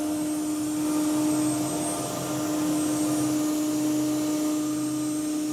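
Steady drone of CNC workshop machinery running, with a constant mid-pitched hum tone over a low rumble and a hiss.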